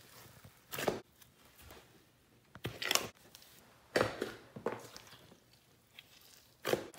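Hands squishing and poking a tub of clear shampoo-and-salt slime heaped with glitter, in about five separate squishes at uneven intervals, the loudest around the middle.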